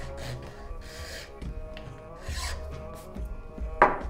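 A hand file rasping in several slow strokes across the tip of a yew bow, cutting and shaping the string nock, with a louder, sharper stroke near the end.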